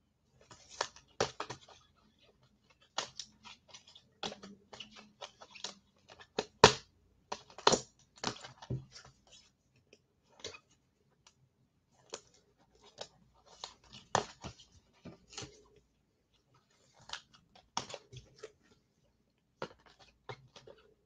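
Irregular clicks, scratches and crinkling rustles of things being handled at close range, in clusters separated by short pauses.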